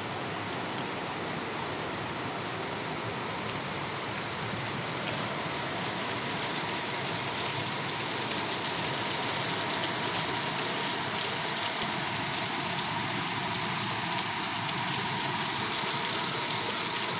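Heavy rain pouring steadily, with big drops falling.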